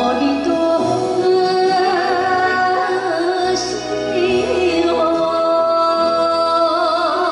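A woman singing an enka song into a microphone over a karaoke backing track. She holds long notes with vibrato, the last one near the end.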